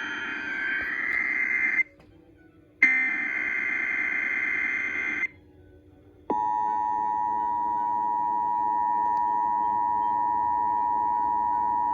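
Emergency Alert System monthly test received off the air: two bursts of the digital SAME header data, each about two and a half seconds long with a second of silence between, then the steady two-tone EAS attention signal starting about six seconds in and holding.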